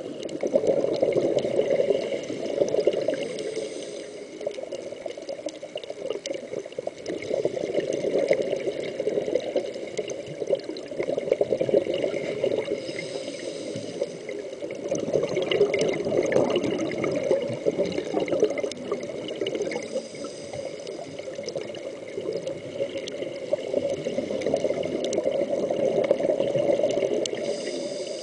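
Scuba diver breathing through a regulator underwater: exhaled bubbles gurgle and crackle in swells every five or six seconds, with a short hiss of inhalation in the lulls between.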